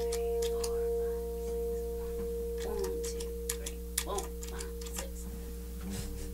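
Guitar notes held on by a delay effect, sounding as a steady chord. The higher notes drop out about a third of the way in and the lowest strong tone holds almost to the end, with light clicks and taps as the effect pedals are worked.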